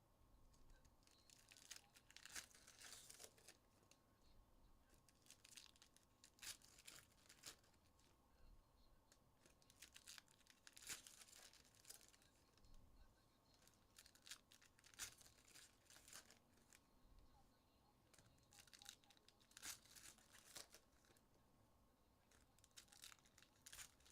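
Faint, repeated tearing and crinkling of trading-card pack wrappers being ripped open and handled, in short scattered rustles.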